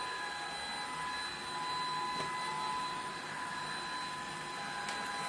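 Polaris PVCS 4090 cordless stick vacuum cleaner running steadily: a constant high motor whine over a rush of airflow.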